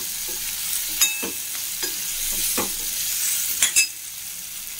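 Diced potatoes sizzling steadily as they fry in oil in a stainless steel kadhai. A steel spoon stirs them, clinking and scraping against the pan several times, loudest near the end.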